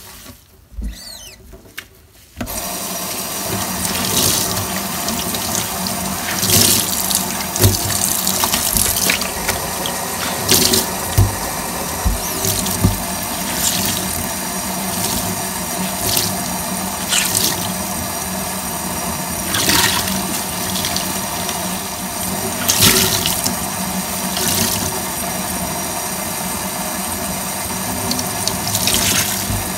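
Tap water running into a stainless steel sink, starting about two seconds in. A wet sponge is squeezed and squished under the stream, giving a dozen or so sharp, wet squelches.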